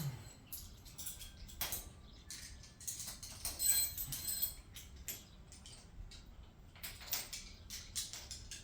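Metal hand tools and sockets clinking and clattering as they are handled and sorted, a string of short clicks with a busier patch about midway.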